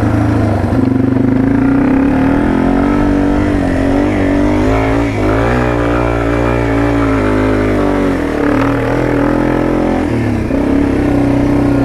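Yamaha TW200's air-cooled single-cylinder four-stroke engine running under load as the bike rides over a rutted dirt trail. The revs rise and fall between about four and eight seconds in, then ease off briefly before steadying again.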